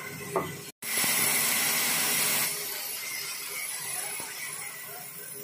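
Sawmill band saw cutting through a log, a steady hissing saw noise. It cuts out for a moment just before a second in, then comes back, easing to a lower level after about two and a half seconds.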